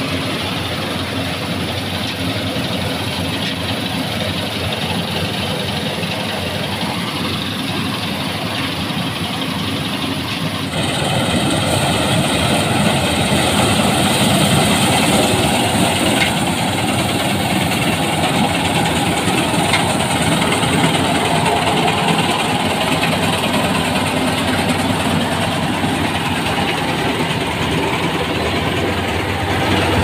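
Kartar 4000 Crop Cruiser combine harvester running steadily while harvesting wheat: engine and threshing machinery drone. About eleven seconds in the sound jumps louder and more hissy, then holds steady.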